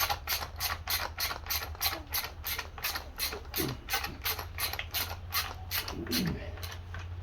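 Ratchet clicking steadily at about four clicks a second while driving screws back in on a chainsaw's cover. The clicking fades out near the end.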